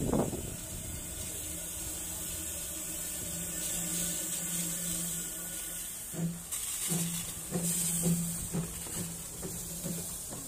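Small narrow-gauge Hunslet steam locomotive standing with steam up, its steam hissing steadily and swelling louder in spells, over a low steady hum. Uneven low sounds come in after about six seconds.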